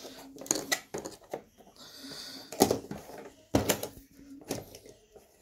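Cardboard jigsaw puzzle pieces being picked up and set down on a table: irregular light taps and clicks, with a short hiss about two seconds in.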